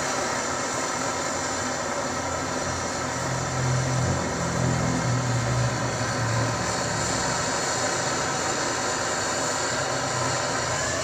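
Butane canister torch burning with a steady hiss while its flame heats a copper-to-brass valve joint for soldering. A low drone swells for a few seconds in the middle.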